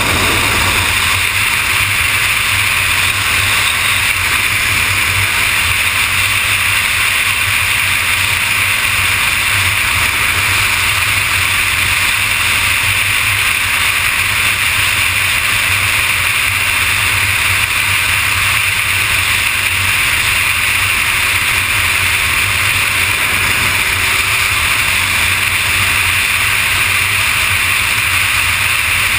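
Steady wind rush on the microphone over a sport motorcycle's engine, running evenly at freeway cruising speed with no shifts or revving.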